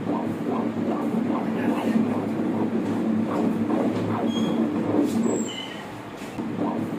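Doppler ultrasound sound of a fetal heartbeat: a rhythmic whooshing pulse about two and a half beats a second, a normal fetal heart rate. It fades for a moment about five and a half seconds in, then returns.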